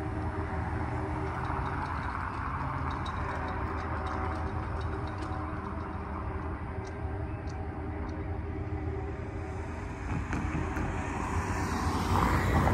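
Steady low rumble of vehicles, with faint scattered ticks in the first half. Near the end a car drives over the railroad crossing close by and grows louder as it passes.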